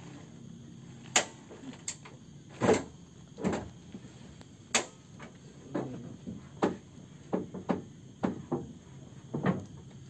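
An irregular series of about a dozen knocks and sharp clicks, some short and thudding, some crisp, over a faint steady low background hum.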